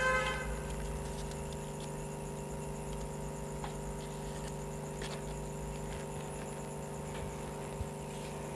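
Quiet room tone with a steady electrical hum, and a few faint taps and rustles as crêpe paper petals and a glue tube are handled. A brief pitched sound comes right at the start.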